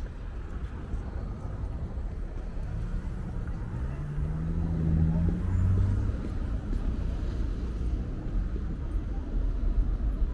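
Road traffic on a city bridge: a steady low rumble of passing vehicles. About three seconds in, one vehicle's drone rises in pitch and swells, then fades by about six seconds.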